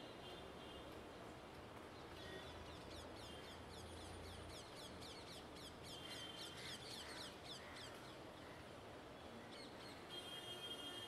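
Faint city ambience: a steady distant hum of traffic under birdsong, with a dense run of quick, high chirps from about two seconds in to past the middle and crows cawing now and then.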